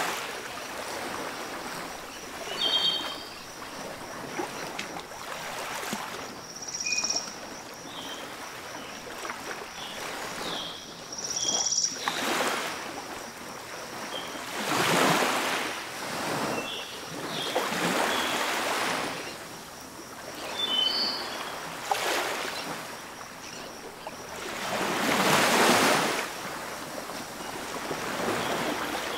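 Water gushing from a large pump outlet pipe into a shallow brick tank, rushing and splashing steadily and swelling into louder surges every few seconds, with a few faint high chirps.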